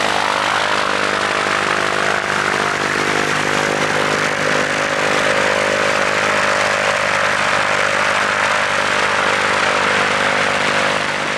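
Gippsland GA8 Airvan skydiving plane's six-cylinder Lycoming piston engine idling steadily on the ground, with a steady rush of prop wash on the microphone.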